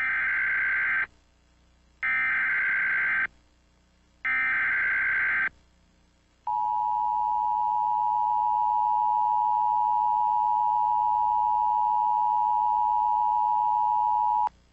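Emergency Alert System SAME header: three bursts of warbling data tones, about a second each, then the two-tone EAS attention signal (853 and 960 Hz together) held steady for about eight seconds before cutting off, announcing an emergency alert.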